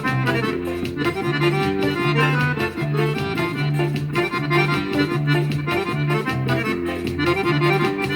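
Instrumental break of a festa junina accordion song: the accordion plays the melody over a repeating bass line and steady, even percussion, with no voice.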